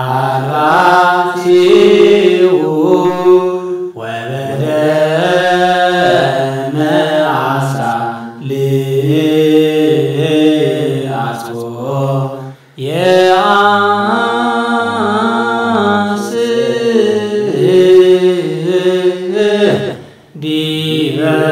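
Chanted church hymn: voices singing long, drawn-out melodic phrases, with brief breaks about four, eight, thirteen and twenty seconds in.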